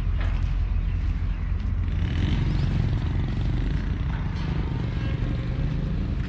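Diesel locomotive of an approaching freight train running with a steady low engine rumble.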